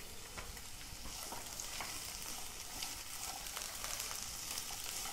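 Chopped onions sizzling in hot oil in a frying pan, a steady high hiss, with light taps and scrapes of a spatula stirring them. The onions have just gone in and are starting to fry.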